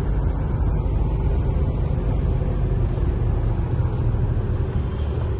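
Steady engine and road rumble inside a moving truck's cab.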